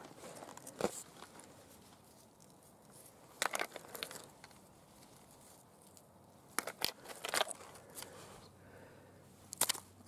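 A hand rummaging through a pile of loose rocks and dry leaves: scattered sharp clicks and crunches of stones knocking together and leaves crackling, with quiet gaps between them.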